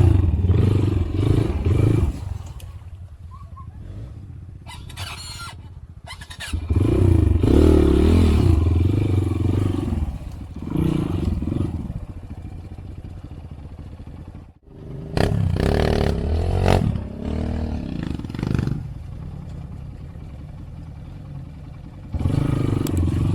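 Motorcycle engine being ridden along a trail, the throttle opened in several loud bursts with quieter, lower running between them.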